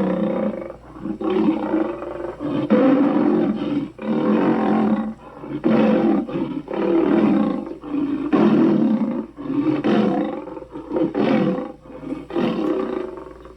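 Sweetums, the shaggy Muppet monster, roaring and growling: about ten short, rough roars in a row with brief gaps between them.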